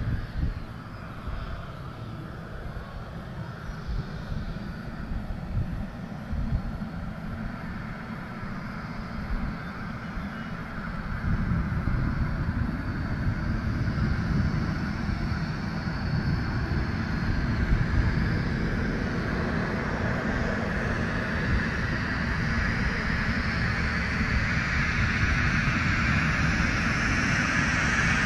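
A Cessna 172 Skyhawk lands and rolls out on the runway, its single piston engine and propeller running at low power. The sound grows steadily louder over the second half as the plane rolls in close.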